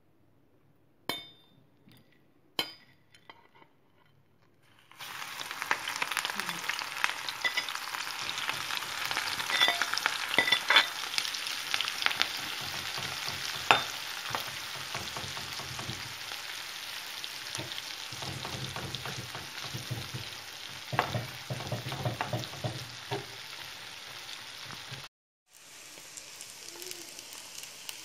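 Small flour-and-spice-coated shrimp deep-frying in hot oil, a loud steady sizzle that starts about five seconds in after a few quiet clicks. A metal spoon clicks and scrapes against the pan now and then as the shrimp are stirred.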